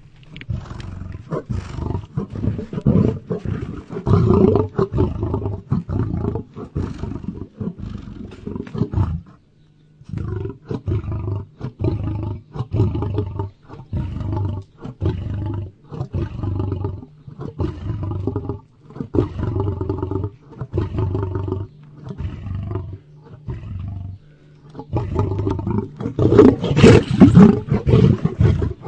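Lion roaring in a long series of repeated calls, with a short break about nine seconds in and the loudest roars near the end.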